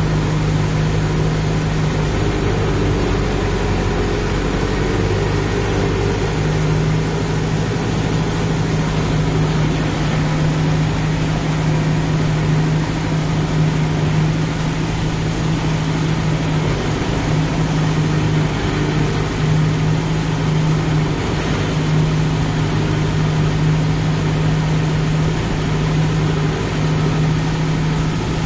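Kubota MU5502 tractor's four-cylinder diesel engine running steadily under load, heard close up, as it works a rotavator through a flooded, muddy paddy field.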